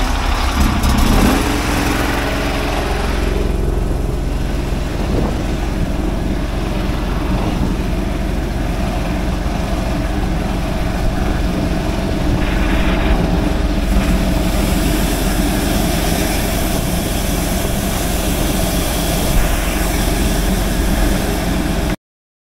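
Engine of a high-pressure sewer jetter running steadily and driving its pump, just after being started; the sound cuts off suddenly near the end.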